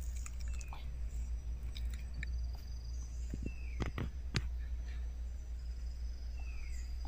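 Forest ambience: steady insect trilling with short descending bird whistles about half a second, three and a half and six and a half seconds in, over a low steady rumble. A few sharp clicks come in a cluster around four seconds in.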